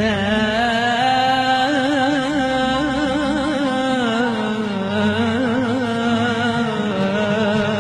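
A male voice singing a long, held Arabic melismatic line with wide vibrato in a Middle Eastern nasheed style, over a low steady drone.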